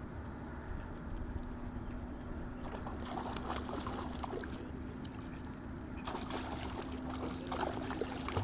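Water splashing and sloshing at a pond's surface in two bouts, about three seconds in and again about six seconds in, over a steady low rumble and faint hum.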